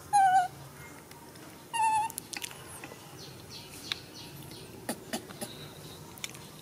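Baby macaque giving two short, loud, wavering calls about a second and a half apart, followed by faint small clicks.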